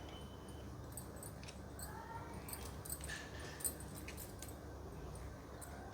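Faint scattered metallic clicks and light scrapes of a screwdriver turning a screw to tighten a loose rod on a sewing machine, over a low hum.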